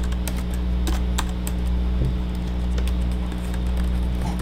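Built-in keyboard of an itel Able 2 laptop being typed on: an irregular run of light key clicks over a steady low hum.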